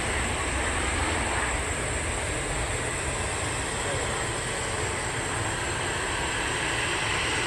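Boeing 737-800's CFM56 jet engines heard from beside the runway during the landing rollout just after touchdown: a steady low rumble with a broad hiss.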